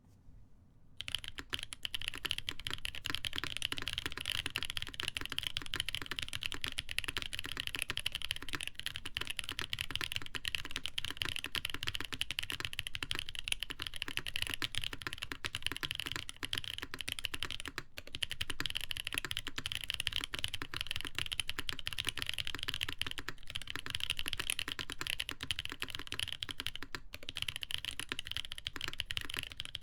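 Continuous fast typing on a custom Primus mechanical keyboard with lubed Boba U4T tactile switches, a polycarbonate plate, plate and PCB foam, and ABS doubleshot keycaps: a dense stream of muted keystroke clacks, starting about a second in, with a brief pause twice.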